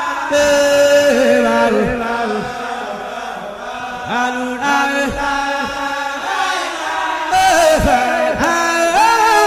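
Chanted singing laid under the pictures as background music: a voice holding long notes that slide from one pitch to the next.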